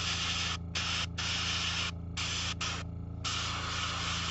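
Airbrush spraying a thin yellow glaze, a steady hiss that breaks off briefly four times as the trigger is let go, with a steady low hum underneath.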